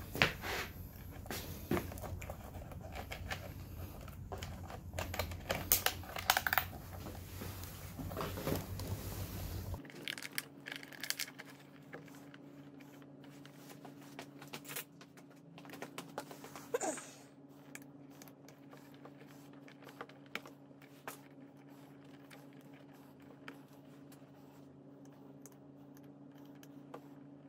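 Small clicks, ticks and plastic rattles of hands working a handlebar switch connector and wiring with a thin pick and wire cutters. The clicks come thick over a low rumble for the first ten seconds or so, when the rumble cuts off abruptly; after that only a faint steady hum and occasional ticks remain.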